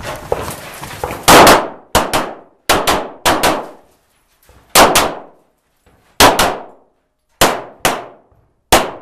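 A competitor's string of about eight pistol shots, fired one every second or so after the start signal. Each shot is sharp with a ringing tail, and several are followed closely by a second strike.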